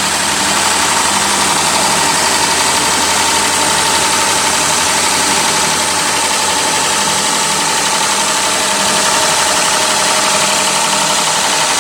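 CNC wood lathe running steadily, with a constant whine over an even machine noise; a second, lower whine joins near the end.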